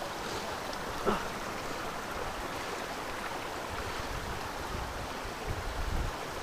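Steady rush of flowing water from a jungle stream.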